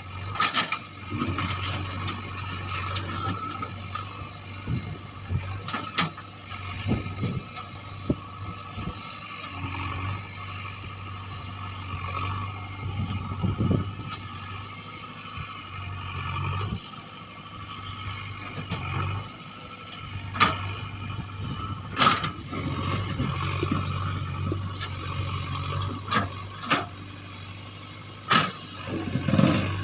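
JCB 3DX backhoe loader's diesel engine running under load while digging, its level rising and falling as it works, with several sharp knocks.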